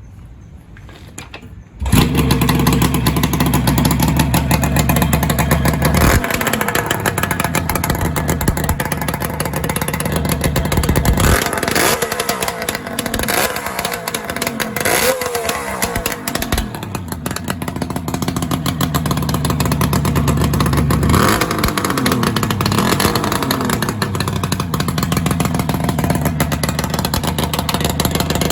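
Kawasaki KH250 two-stroke three-cylinder engine running through its expansion-chamber exhaust. It comes in suddenly about two seconds in and idles, is blipped up and down several times in the middle, settles back to idle, and is revved once more near the end.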